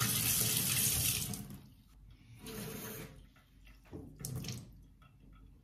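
Kitchen tap running for about a second and a half, then two short rustling handling sounds a second or so apart.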